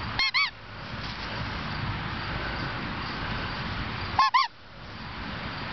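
A puppy giving two quick high-pitched yips, then another pair about four seconds later.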